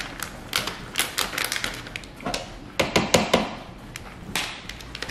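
Plastic bag of shredded cheese being torn open and handled: an irregular run of sharp crinkles and clicks, with a few louder crackles.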